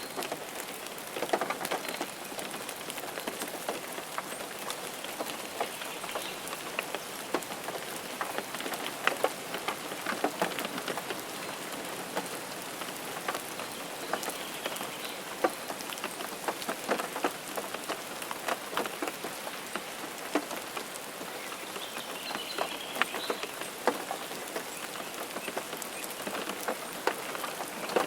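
Steady rainfall: an even hiss with many separate drops tapping close by.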